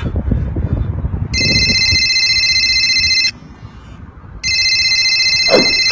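iPhone ringing with an incoming call: two rings of an electronic ringtone, each about two seconds long, with a pause of about a second between them.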